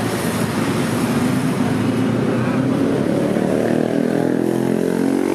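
Street traffic running steadily along a busy city road, with one vehicle's engine drawing close and passing in the last couple of seconds.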